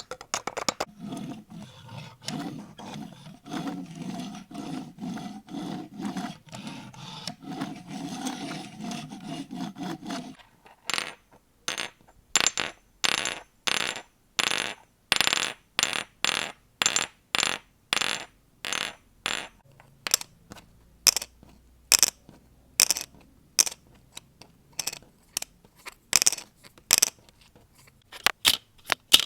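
Close-miked ASMR trigger sounds. For the first ten seconds an object is rubbed or scratched in a dense, pulsing texture with a faint steady tone. Then the sound changes to a run of short, bright, clinking strokes, about two a second.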